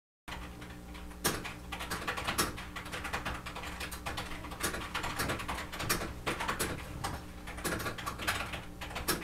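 Typing on a computer keyboard: a stream of irregular key clicks over a steady low hum, starting just after a moment of dead silence.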